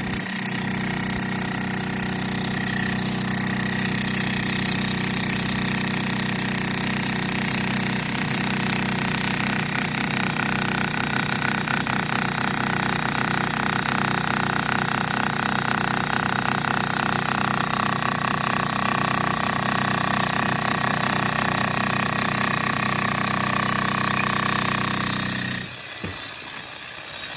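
DCK 11 kg electric demolition hammer running continuously, a rapid steady hammering over the motor's whine, which stops abruptly near the end.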